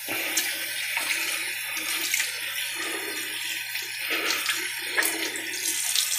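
Tap water running into a sink, with irregular splashing as water is scooped and splashed onto the face to rinse after a shave.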